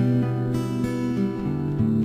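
Background music on plucked acoustic guitar, sustained notes changing every fraction of a second.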